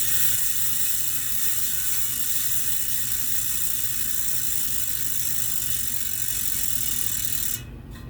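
Bitex MAR rear hub's freehub buzzing as the wheel freewheels: a fast, steady, high-pitched ratcheting from its offset pawl system, six pawls with three engaging at a time for 3¾ degrees of engagement. It is not too loud for such fine engagement, and it cuts off suddenly near the end.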